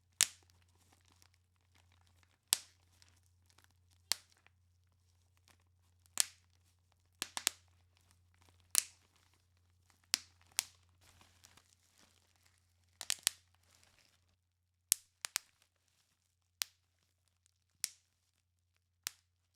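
Bubble wrap being popped one bubble at a time: sharp, single pops every second or two, now and then two or three in quick succession. Faint crinkling of the plastic between pops fades out about two thirds of the way through, leaving only the pops.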